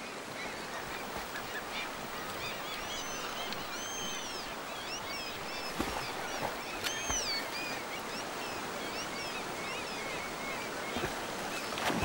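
Birds calling again and again over the steady rush of a river: many short, high, arching cries, with a louder call about seven seconds in.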